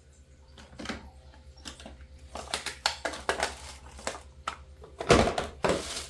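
Plastic containers and refrigerator parts being handled, a run of knocks and clatter, with a louder, longer scraping thump about five seconds in.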